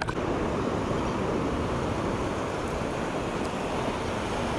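Steady wash of ocean surf, with wind on the microphone.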